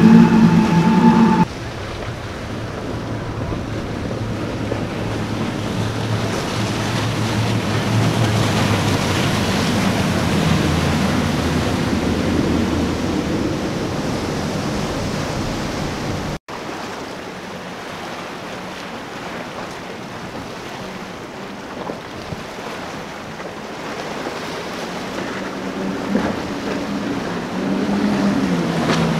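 Multiple outboard engines on center-console boats running at speed. Their drone is mixed with rushing water from the hull and wake and with wind on the microphone. The sound cuts off abruptly twice, and engine noise grows louder near the end.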